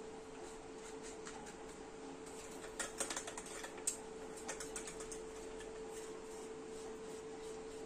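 Light clicks and taps of a stainless-steel mixer-grinder jar against a steel plate as ground powder is shaken out of it, a quick cluster of them about three seconds in. A steady faint hum runs underneath.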